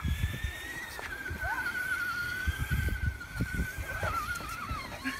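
Electric motor of a radio-controlled monster truck whining with a thin, wavering pitch that dips near the end, with irregular low thumps underneath.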